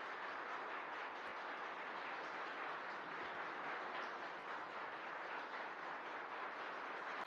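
Faint, steady hubbub of a crowd of spectators in a courtroom, with no clear words.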